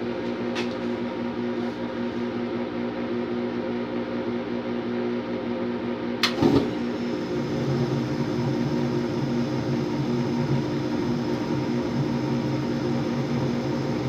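Old Janitrol gas furnace's draft inducer motor humming steadily. About six seconds in comes a sharp click and a brief low whoomp as the burners light, and a low burner rumble joins the hum after that. The owner suspects the flame sensor on this furnace.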